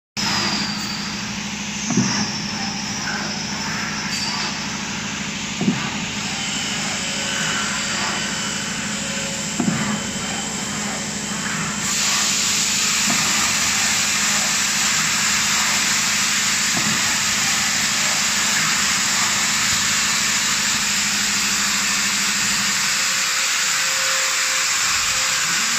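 Glove turning machine for terry gloves at work: a steady hum with a sharp knock every few seconds as it cycles. About halfway through, a loud, even hiss takes over, and the hum fades out near the end.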